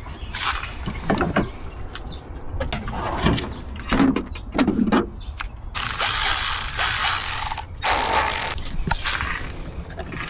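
Ratchet wrench and metal hand tools clicking and clanking in irregular bursts over a low steady rumble, as parts are taken off an engine's intake manifold.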